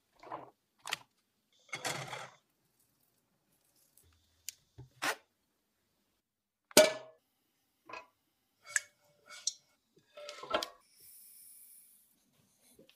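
A series of separate kitchen handling sounds. First come soft rustling patters as soaked split mung beans are dropped into a bamboo steamer. Then come scattered knocks and clinks of a bowl and utensils, with one sharp knock about seven seconds in as the loudest. Near the end there is a short soft hiss of sugar being poured into a pan.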